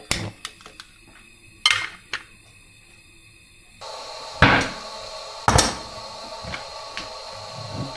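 A series of sharp knocks and clatters, as of objects being handled and set down. About four seconds in, a steady hiss starts under them, and a few louder knocks follow.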